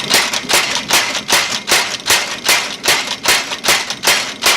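Hammer striking hot steel bar held in fullering dies, a steady run of ringing blows about two and a half a second, spreading the metal.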